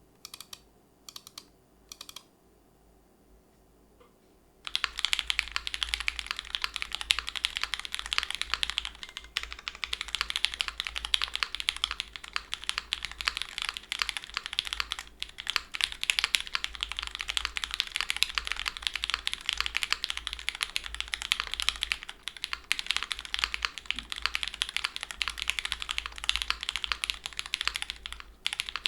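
Monokei Kei R2 mechanical keyboard, with lubed SP-Star Sacramento switches on an O-ring-mounted aluminium plate and GMK Minimal keycaps, being typed on: three short bursts of keystrokes in the first couple of seconds, then fast continuous typing from about five seconds in until a brief pause near the end. The keystrokes sound deeper than the owner expected of these switches.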